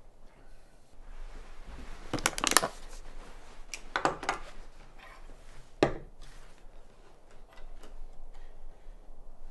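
A manual metal can opener and a tin can handled on a wooden table: a few separate clacks and rattles, the loudest cluster about two seconds in, another around four seconds and a sharp knock just before six seconds.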